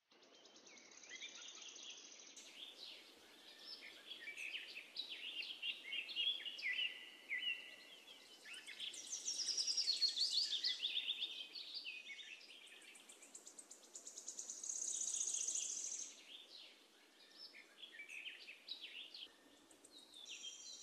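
Nature ambience of many small birds chirping and trilling over a steady background hiss, with louder high trills about halfway through and again a few seconds later.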